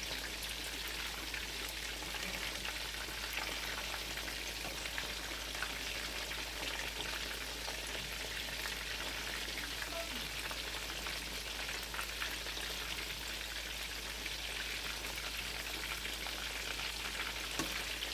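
Chicken cutlets frying in a pan of hot oil: a steady sizzle with scattered small crackles and pops as the golden-brown pieces cook through.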